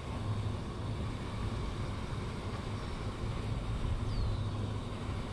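Steady low outdoor rumble, with a faint short falling whistle about four seconds in.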